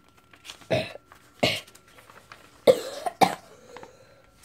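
A person coughing, four short coughs spread over a few seconds.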